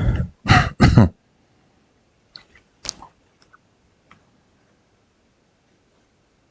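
About a second of close, rough handling noise at the start, followed by a few faint, separate clicks, then quiet.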